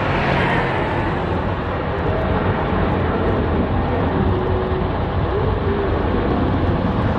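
Airbus A320-216's twin CFM56 jet engines running at low taxi power, a steady rumble and hiss as the airliner rolls slowly along the runway.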